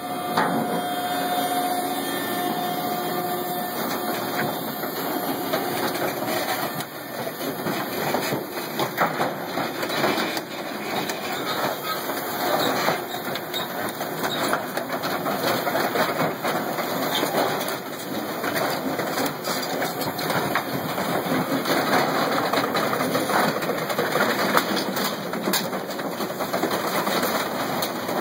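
Industrial scrap compactor running through its compaction stroke: the machine's steady running noise, with a steady tone in the first few seconds, then a dense run of creaks, pops and crackles as sheet-metal appliances and a steel drum are crushed.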